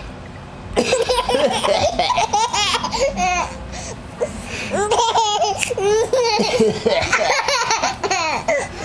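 A baby laughing in repeated bursts of belly laughter, with short pauses between them.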